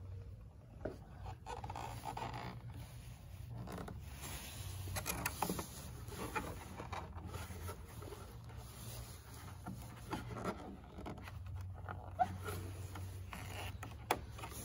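Hands working masking tape and the adhesive backing of a carbon fiber vent cover on a C7 Corvette's rear brake duct: scattered rustling, crinkling and small clicks over a steady low hum.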